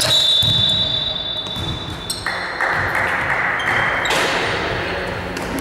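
A referee's whistle blown once at the start, a steady high tone lasting about a second and a half, stopping play. After it comes the steady noise of the gym hall.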